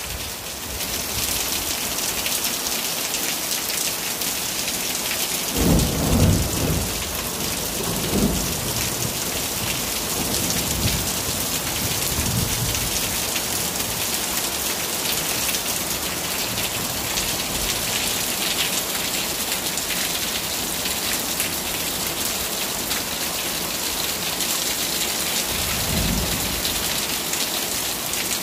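Rain falling steadily onto a wooden deck and garden plants, with low rumbles of thunder about six seconds in, a few weaker ones over the next several seconds, and another near the end.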